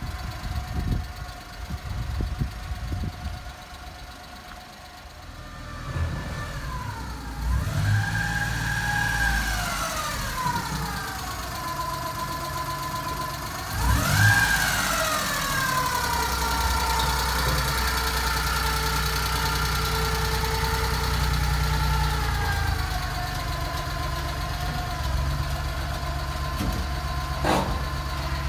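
Suzuki Carry's 657 cc F6A three-cylinder engine running: it is revved up and back down twice, the second time about halfway through, then settles to a steady idle. There is a single sharp click near the end.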